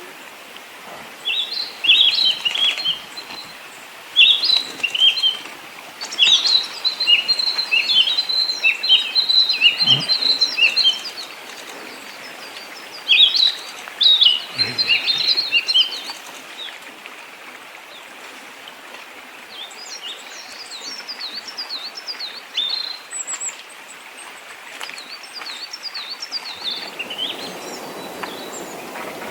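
Small songbirds singing: bursts of rapid, high chirps and trills, busiest in the first half and sparser later, over a steady background hiss.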